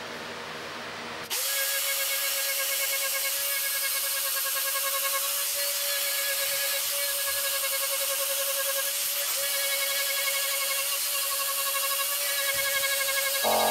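Electric rotary tool with a ball-shaped carbide burr, running at a steady high-pitched whine as it cuts a row of small dimples into a wooden surface. It gets louder about a second in and then holds steady.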